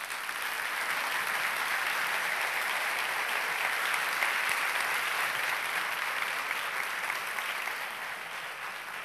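Audience applauding. It swells within the first second, holds steady, then tapers off over the last couple of seconds.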